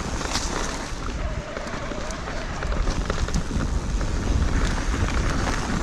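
Wind buffeting the action camera's microphone in a deep rumble while the mountain bike rides over the trail, with scattered clicks and rattles from the bike.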